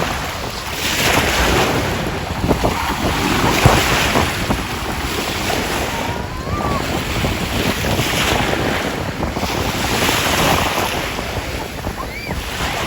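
Sea waves washing on the shore, the hiss swelling and falling every couple of seconds, with wind buffeting the microphone.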